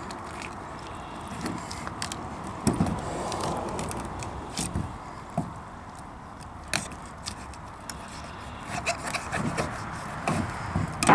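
Boning knife cutting and scraping around the hip joint of a snapping turtle carcass: scattered small clicks and scrapes of blade on bone and joint, more frequent near the end, over a faint steady background hiss.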